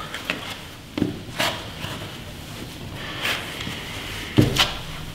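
Footsteps climbing concrete stairs: a handful of irregular scuffing steps and thumps, the loudest one near the end.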